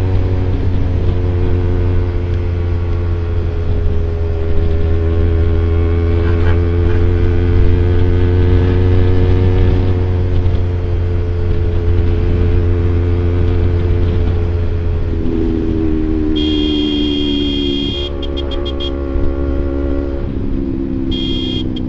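Kawasaki Ninja 250 FI parallel-twin engine through a CLD Monster Racing aftermarket exhaust, running at a steady cruise, its pitch dropping as the revs come down about two thirds of the way through. A vehicle horn beeps in short blasts near the end, twice.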